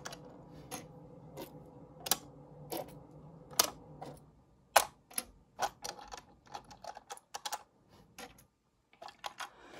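Small plastic toy vehicles clicking and clattering as they are picked up and set down one by one on a plastic display stand: a string of irregular sharp clicks, coming faster in the second half.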